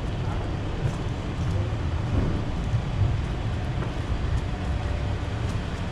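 City street ambience dominated by a steady low rumble of traffic, with a few faint clicks.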